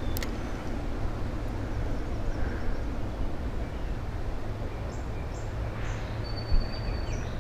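Steady low background rumble, with a few short high bird chirps and a thin held whistle-like call in the second half.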